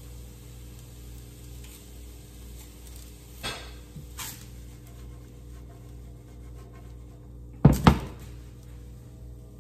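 Onions and broccoli frying in a cast-iron skillet with a faint sizzle. A couple of lighter knocks a few seconds in, then two loud clanks close together near the end as the skillet is worked by its handle on the glass-top stove.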